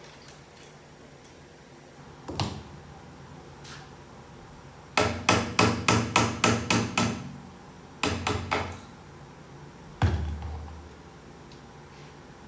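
Hammer blows on metal parts of a VW 09G automatic transmission during teardown: a single tap, then a fast run of about nine blows, a short run of three, and a final heavier blow with a low ring after it.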